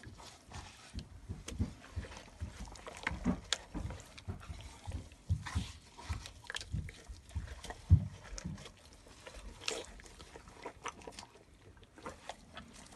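Gloved hands massaging a wet spice marinade into a raw whole chicken: irregular squelches and soft smacks of wet skin, with rubbing of the plastic glove. The loudest smack comes about eight seconds in.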